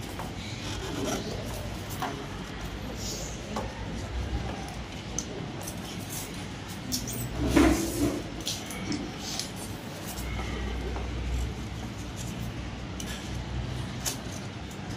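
Foam-board pieces of a model jet fuselage rubbing and knocking together as they are fitted and pressed into place by hand. There are scattered small clicks, with one louder knock a little past halfway.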